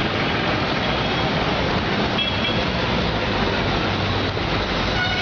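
Steady street traffic noise, with motorcycle engines running close by.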